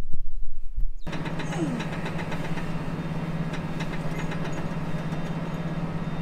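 Farm tractor's engine running at a steady pace, heard from inside the cab as an even, constant drone. Before it, about a second of low wind rumble on the microphone.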